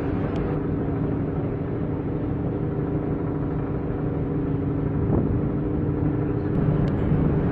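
Ship's horn sounding one long, steady, deep blast over a low rumble.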